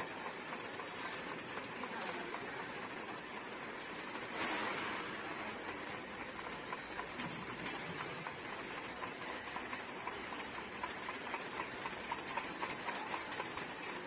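Automatic piston filling and screw-capping line for detergent bottles running, its conveyor and mechanisms making a steady rapid ticking clatter over a hiss. A louder burst of hiss comes about four seconds in.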